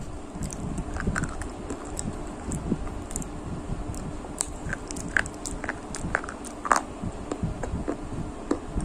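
Close-miked chewing of biryani with curd: soft, irregular mouth clicks and smacks.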